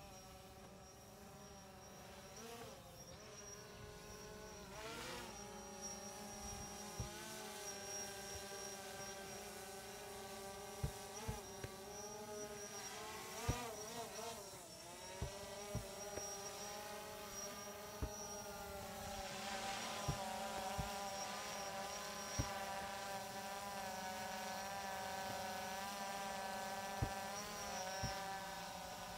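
A steady buzzing whine of small motors that wavers up and down in pitch, with a dozen or so dull thuds of heavy slam balls hitting the turf through the second half.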